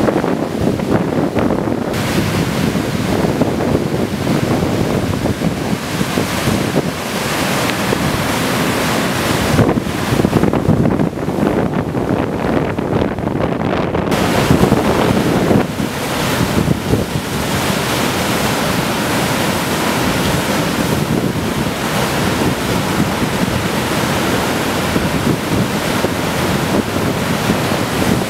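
Loud, steady rush of floodwater, with wind buffeting the microphone in uneven gusts.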